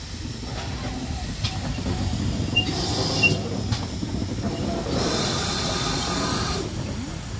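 Steam locomotives rolling slowly past: a steady low rumble of wheels on the track with a few sharp clicks, and steam hissing out in two bursts, about two and a half seconds in and again from about five seconds.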